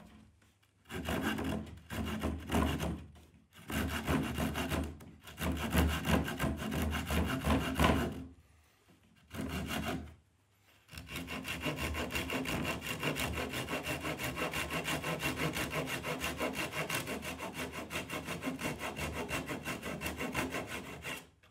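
Japanese pull saw with a replaceable Tajima blade cutting through a thin plywood sheet. Short runs of rapid strokes with brief pauses in the first half, then a long steady run of fast, even strokes for the last ten seconds.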